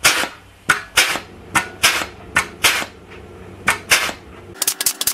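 Pneumatic joggler (air panel flanger) stepping the edge of a steel car-body repair panel: a series of sharp air-driven clacks, roughly one or two a second, then a quicker run of lighter clicks near the end.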